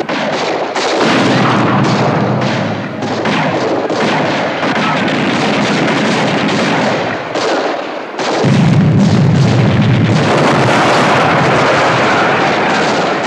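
Film battle sound effects: rapid, overlapping gunfire and blasts. A heavier low rumble sets in about two-thirds of the way through.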